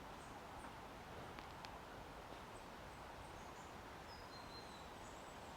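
Quiet outdoor ambience: a faint steady background hiss with a few faint, short, high-pitched bird chirps, one drawn out a little about four seconds in, and a couple of soft ticks about a second and a half in.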